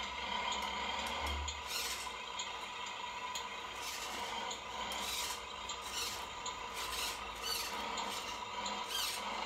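Tamiya radio-controlled truck manoeuvring with its pallet-laden trailer: a steady whine from its electric drive, with repeated short scraping squeaks scattered through it, typical of tyres scrubbing while the multi-axle rig turns.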